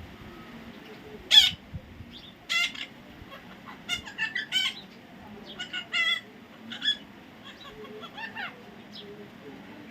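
A parrot giving a string of about ten short squawking calls, spaced irregularly; the loudest comes about one and a half seconds in.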